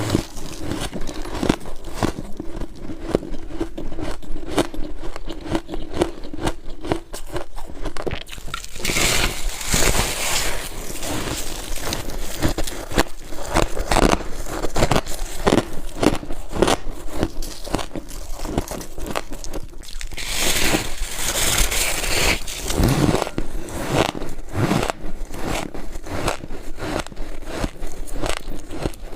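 Close-miked biting and crunching of hard freezer ice and frost, many sharp irregular crunches in quick succession with stretches of scraping and crackling.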